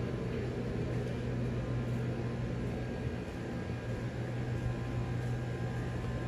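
Air-conditioning unit running with a steady low hum and an airy hiss of moving air.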